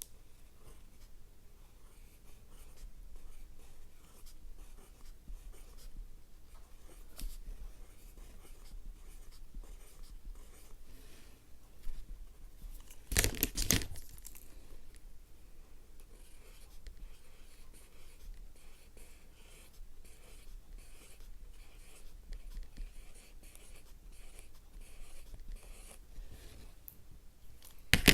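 Mechanical pencil lead scratching softly across paper in a stretch of writing, with a louder burst of scraping or rubbing about thirteen seconds in.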